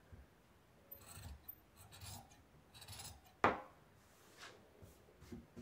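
Large tailor's shears cutting through two layers of fabric, a few faint snipping strokes about a second apart, with a sharper snip about three and a half seconds in.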